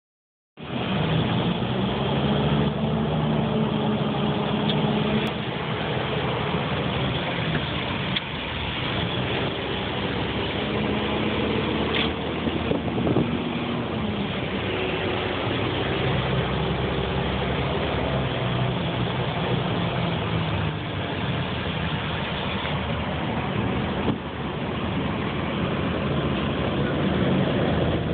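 A truck's engine running, heard from inside the cab as it drives slowly, a steady drone whose pitch shifts up and down now and then.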